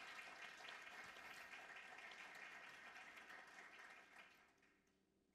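Audience applauding, faint, with many overlapping hand claps that die away about four and a half seconds in.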